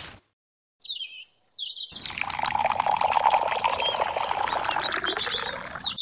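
Water poured from a small cup into cement powder in a tin can: a steady trickle that starts about two seconds in and runs on to the end. Birds chirp just before the pour starts and faintly over it.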